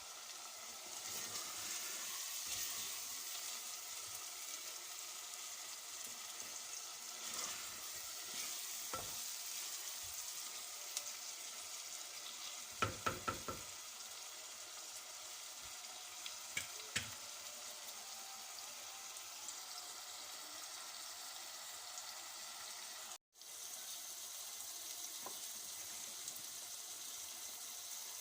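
Food sizzling as it fries in a pan, with stirring; a quick run of about four knocks about halfway through and two more a few seconds later.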